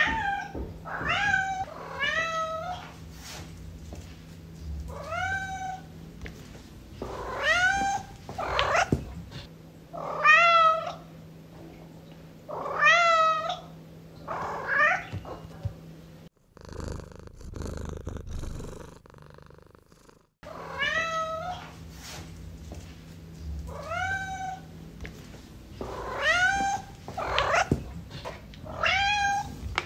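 Domestic cat meowing over and over, a string of short rising meows about a second apart. About halfway through the meows stop for a few seconds and a quieter sound takes their place.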